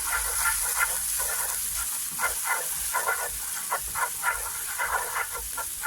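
Minced ginger, garlic and chili flakes sizzling in a hot pan while being stirred: a steady sizzle with many short, irregular scraping strokes of the utensil against the pan.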